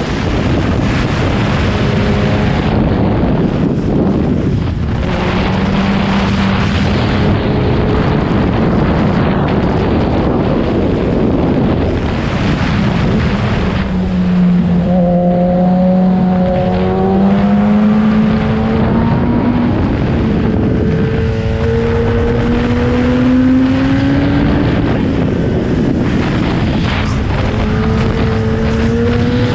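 Superbike engine pulling hard under way, its pitch climbing in several separate pulls as the revs rise, over heavy wind rush on the microphone.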